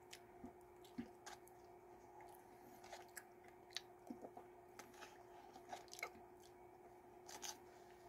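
Faint chewing of an Oreo Fudge McFlurry, with scattered soft clicks from a plastic spoon and cup, over a steady faint hum.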